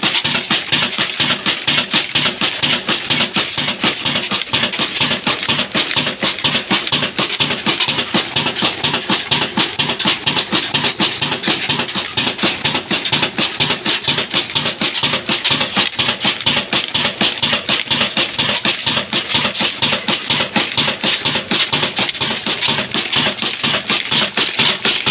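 Old stationary diesel engine, a Ruston-type 'black engine', running steadily with an even rhythm of rapid knocks.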